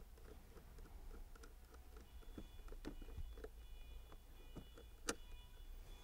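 Faint clicks and scrapes of a screwdriver turning a screw into a scooter battery's negative terminal, with one sharper click about five seconds in.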